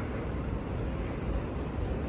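Steady hum and hiss of an empty airport terminal hall's background noise, with a low rumble underneath and no distinct events.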